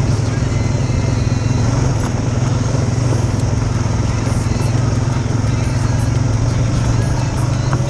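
ATV engine running at a steady pace while the quad is ridden along a dirt trail: a constant low drone with no change in revs.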